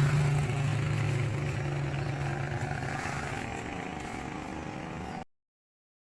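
Honda Tiger single-cylinder four-stroke motorcycle engine running steadily, its pitch dropping a little at the start and its level slowly fading, then cutting off abruptly about five seconds in.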